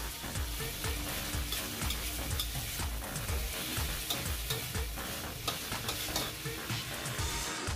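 Pork spare-rib pieces sizzling in oil in a stainless steel wok while a metal wok spatula stirs them, scraping and tapping against the pan again and again.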